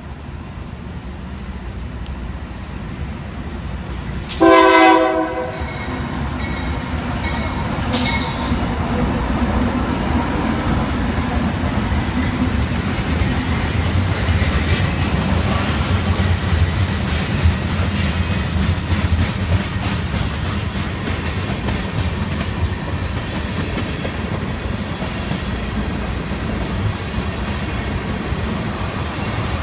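Two Union Pacific GE AC4400CW diesel freight locomotives approach and pass, growing louder. One short, loud horn blast sounds about four seconds in, then the diesels rumble past. Tank cars follow, their wheels rolling over the rails.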